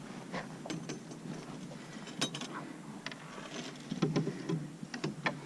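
Scattered light clicks and taps of metal fishing tackle being handled, irregular and sparse, with a little low rustling.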